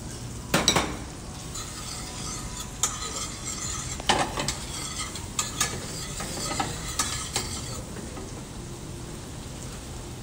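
Chopped onion and garlic sizzling in butter and olive oil in a stainless steel frying pan, sautéed as the base of a bolognese ragù. A metal utensil stirs them, clinking and scraping against the pan about half a dozen times.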